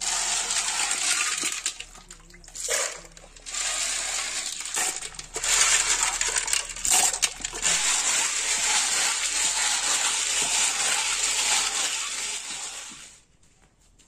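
River snails being scrubbed by hand in water in an aluminium pot: shells clicking and rattling against each other and the metal, with water sloshing and splashing. The sound briefly drops twice early on and stops about a second before the end.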